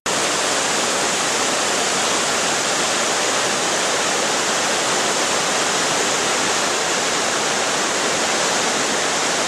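Steady, even rush of falling water, cutting in abruptly at the start.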